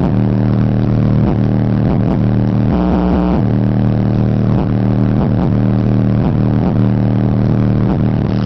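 Loud, bass-heavy hip-hop beat played through a 12-inch L7 subwoofer, with deep sustained bass notes and no vocals.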